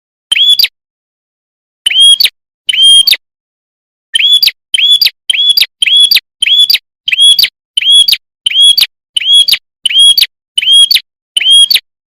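Bird-lure recording of the prenjak kepala merah call, clear and loud: short chirps that sweep up and level off, three spaced ones at first, then repeated steadily about one and a half times a second, with dead-silent gaps between them.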